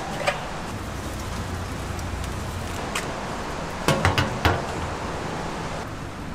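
A large aluminium lid clanks down onto the rim of a clay jar oven in a quick run of metallic knocks about four seconds in, over a steady hiss. A single light metal click sounds just after the start, as meat is hung on the oven's wire hooks.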